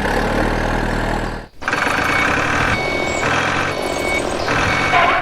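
Truck engine sound running steadily. It cuts off sharply about a second and a half in, then resumes with a reversing alarm beeping in repeated tones.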